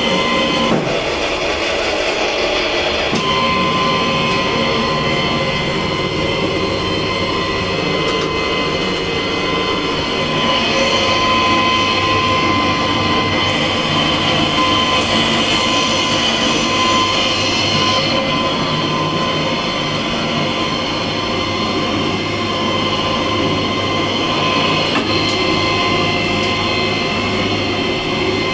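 Electric pipe threading machine running at its slow speed while its die head cuts threads on a 3-inch (80 mm) mild steel pipe: a steady mechanical running noise with a few steady tones.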